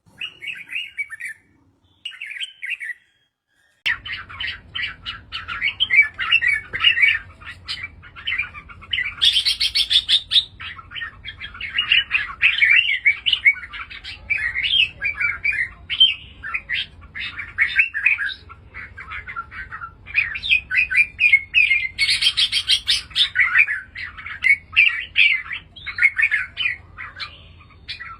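Red-whiskered bulbuls singing: short chirping song phrases with pauses at first, then, from about four seconds in, near-continuous rapid chirps and warbles over a faint low hum.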